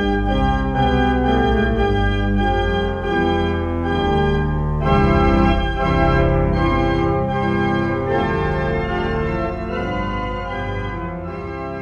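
The restored 1899 Binns pipe organ playing sustained chords that change every second or so over a deep held pedal bass, growing quieter toward the end.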